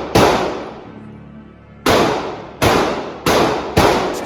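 9mm Glock pistol firing in an indoor shooting range, each shot a sharp crack with a long echoing tail. One shot, a pause of nearly two seconds, then five more in quick succession about half a second apart.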